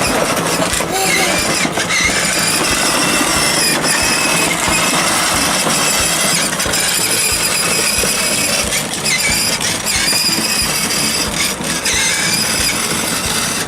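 Electric motor and gearbox of a 6V toy ride-on quad bike whining high and steady as it drives, the pitch wavering a little, over a continuous noisy rumble.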